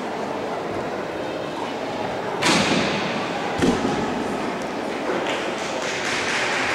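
Two heavy thumps a little over a second apart, each ringing on in a large echoing hall, over a steady murmur of the hall.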